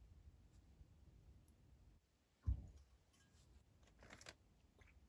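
Near silence in a small room, broken by one soft low thump about halfway through and a brief rustle of small clicks about a second and a half later.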